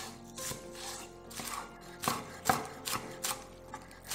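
Chef's knife chopping scallion whites on a wooden cutting board: a couple of slower cuts, then quicker, sharper strokes from about two seconds in, roughly three a second. Soft background music runs underneath.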